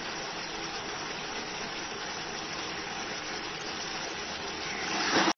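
Chicken in thick gravy simmering and sizzling in a pan: a steady bubbling hiss that grows louder near the end, then cuts off abruptly.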